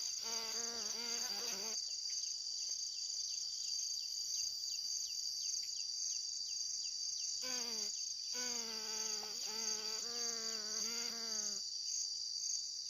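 Steady, high-pitched insect trilling with a fast pulse throughout. Over it, a drawn-out pitched call of unknown source is heard near the start and again for about four seconds in the second half, wavering in pitch. Small falling chirps sound in between.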